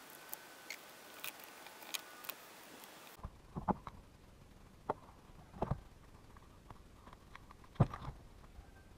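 Scattered small clicks, taps and light knocks of chainsaw parts and hoses being handled and pressed into place during reassembly, with the loudest knock near the end.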